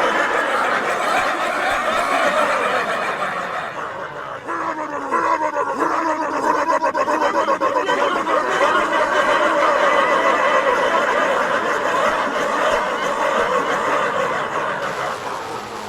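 A person imitating an airplane's jet turbine with their voice: a continuous, strained vocal whine that dips about four seconds in, rises in pitch again and holds steady.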